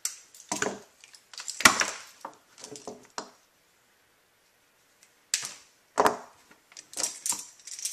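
Rope ratchet light hangers and their metal carabiners being handled and unwrapped: a run of short clicks and rattles, with a sharper snap about a second and a half in.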